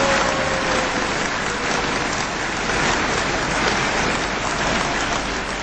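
Large outdoor crowd applauding steadily, a dense even clatter of many hands. A faint held tone sags slightly and fades in the first second or so.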